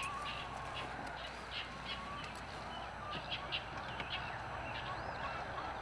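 Birds chirping and calling: a scatter of short, high chirps over a faint steady low hum.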